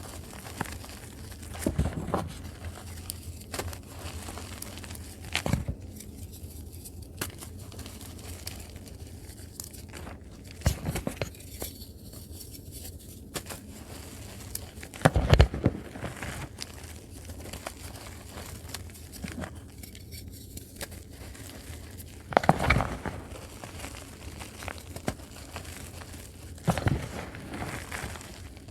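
Dusty reformed gym chalk and chalk blocks being crushed and crumbled, a soft dry crackle broken every few seconds by a louder crunch.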